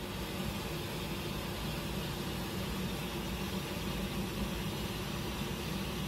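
Salt cod and olive oil sizzling gently in a nonstick frying pan as the pan is swirled to emulsify the pil-pil sauce: a steady hiss with a low hum underneath, rising slightly at the start and then holding even.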